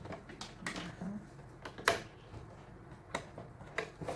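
Scattered clicks and taps of a product box being handled and opened, the loudest about two seconds in.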